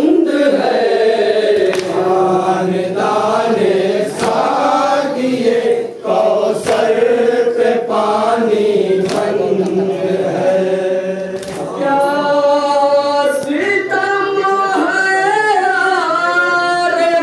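A group of mourners chanting a noha, a Shia mourning elegy, together. Sharp slaps land about every two and a half seconds.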